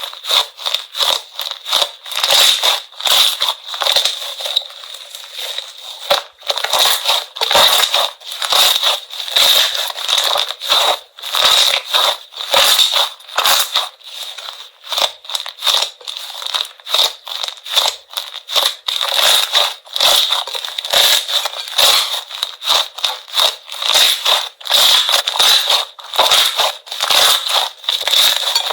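Slime being squeezed and pressed by hand, giving a dense run of crackling and crunching clicks with brief pauses between squeezes.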